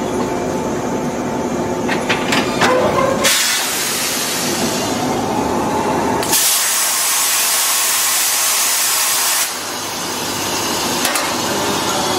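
Two electric express trains coupling: a few sharp knocks as the couplers close, then compressed air hissing loudly for about six seconds, louder for its second half and stopping abruptly, over the steady hum of the trains' idling equipment.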